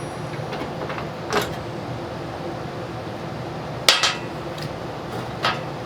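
A wrench and loose bolts clinking on metal: three short sharp clinks, the loudest about four seconds in, over a steady background hum.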